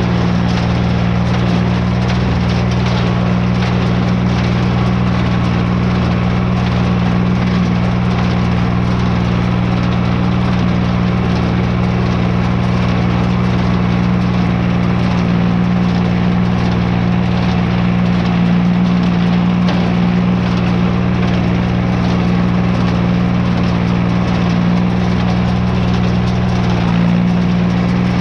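Farm tractor engine running steadily at a constant speed.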